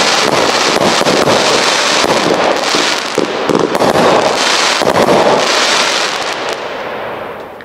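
A 42-shot, 500 g Sky King 'Cheat Code' firework cake firing a dense, rapid run of shots and aerial bursts. It thins out and fades away near the end.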